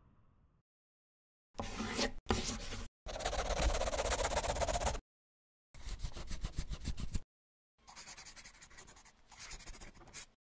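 Scribbling sound effect: a pen scratching across paper in six separate strokes, the longest about two seconds. The last two strokes are fainter.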